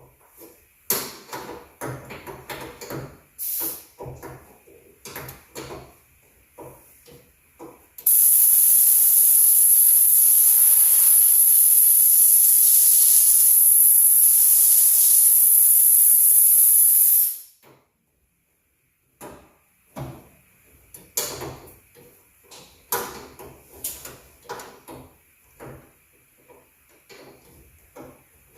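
A loud, steady hiss of compressed air let out through an air compressor hose, lasting about nine seconds and cutting off suddenly. Before and after it, irregular metallic clicks and knocks of hand tools working on a truck door.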